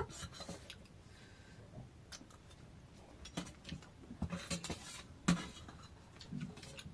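Scattered light clicks and clinks of eating utensils against a dish during a meal, with one sharper click about five seconds in.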